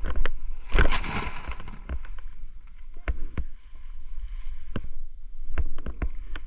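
Wind buffeting a camera microphone, with many sharp knocks and clicks of handling. About a second in there is a loud rush of fabric and air as the BASE jumper's parachute bridle and bag are pulled from the hand holding the pilot-chute assist.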